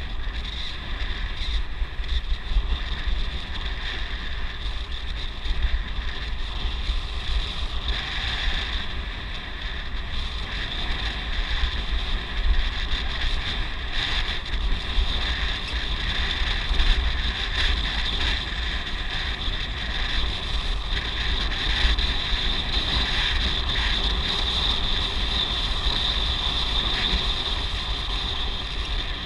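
Wind buffeting the microphone on a moving ride, a steady low rumble, over a continuous high-pitched shrill sound that swells and fades.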